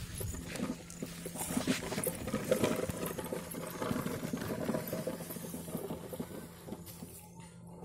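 Sand being scooped and scraped by hand around a toy tractor and its loaded trolley: irregular gritty scrapes and small clicks over a steady low hum, thinning out near the end.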